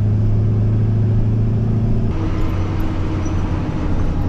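Kodiak truck's diesel engine and road noise while driving: a steady low drone that changes tone about two seconds in.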